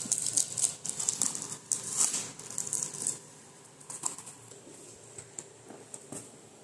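Packing tape being peeled and ripped off a cardboard parcel box: a dense run of crackling rips for about three seconds, then scattered ticks and rustles as the cardboard flaps are handled.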